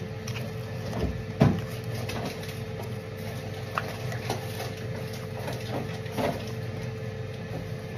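A steady low mechanical hum, with a few light knocks and clinks of things being handled in a kitchen; the loudest knock comes about a second and a half in.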